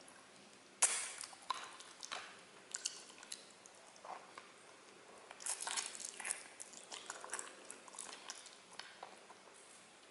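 Mouth sounds of eating spicy chicken feet in sauce: wet smacking, sucking and chewing with irregular sharp clicks. The loudest comes about a second in, and there is a busy stretch around the middle.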